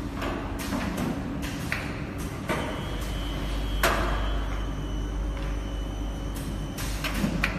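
Automatic pouch filling and capping machine running: irregular mechanical clacks and knocks over a steady low hum, the loudest knock about four seconds in, with a thin high whine from about three to seven seconds in.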